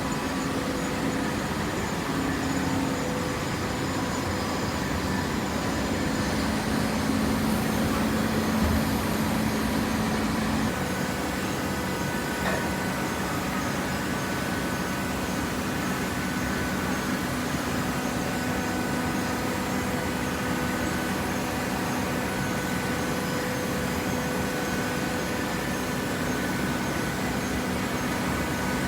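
Hydraulic cardboard baling press running: a steady motor and hydraulic pump hum with a noisy mechanical background. One of the humming tones drops out about eleven seconds in.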